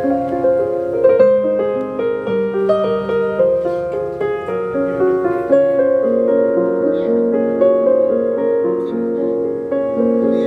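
Piano music with many held, overlapping notes.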